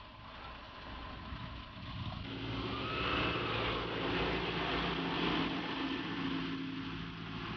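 Concrete mixer truck running with its drum turning as concrete is discharged down the chute: a steady engine hum that becomes louder and more even about two seconds in, with a noisy hiss over it.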